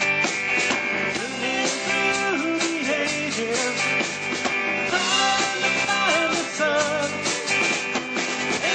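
Rock band playing live: guitars over a steady drum beat.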